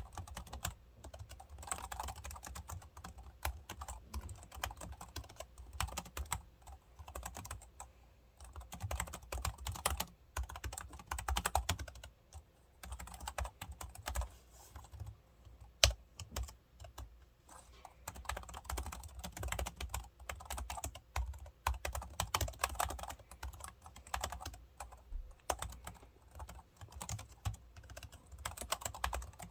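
Typing on a B.Friend RB730 scissor-switch keyboard: a continuous, irregular patter of light key clicks in quick runs, with one sharper, louder keystroke about halfway through.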